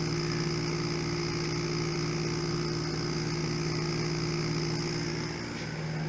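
Small oil-sealed electric vacuum pump running steadily with a hum and a fast even pulse, working hard and running hot while pulling a deep vacuum on sealed steel drums. It grows slightly fainter about five and a half seconds in.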